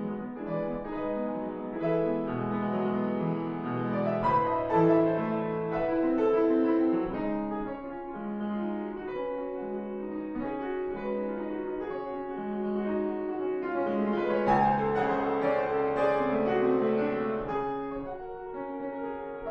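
Classical piano music.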